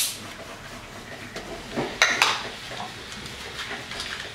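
Light metallic clinks and taps as a compression tester's hose and brass adapter are handled at the engine's cylinder head, with two sharper clicks about two seconds in.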